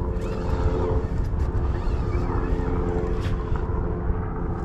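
Steady engine drone, a hum of several even tones over a low rumble, with wind buffeting the microphone.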